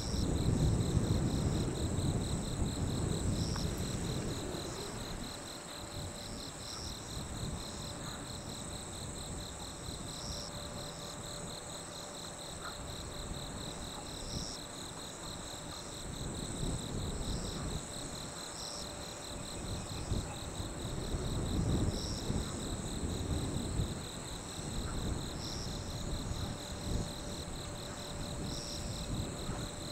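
Night insects trilling steadily in high continuous tones, with a low rumble underneath that swells and fades, loudest near the start and again past the middle.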